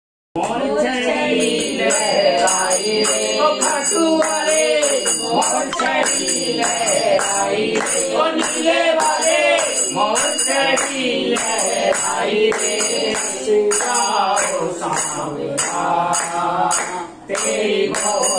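Hindu devotional bhajan sung by a small group at a home kirtan, over jingling hand percussion keeping a steady beat. It starts about half a second in and dips briefly near the end.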